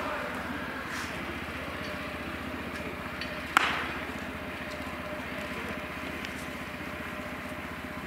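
A thrown baseball smacking into a leather catcher's mitt: one sharp, loud pop about three and a half seconds in, and a fainter pop about a second in, over a steady background hum.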